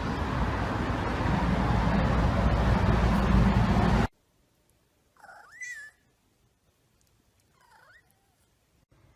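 Loud hip-hop music cuts off suddenly about four seconds in. After a pause a cat meows once, rising then falling in pitch, and then gives a second, shorter and fainter meow.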